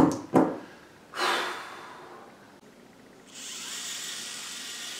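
A man's short, loud breathy gusts, then a longer exhalation about a second in that fades away. From about three seconds in, a steady hiss.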